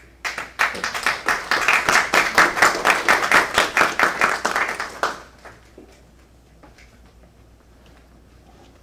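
A small audience applauding for about five seconds, then stopping, followed by faint scattered taps and shuffling.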